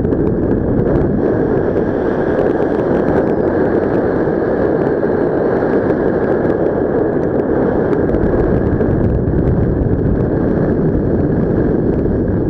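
Loud, steady rush of wind buffeting the microphone in paragliding flight.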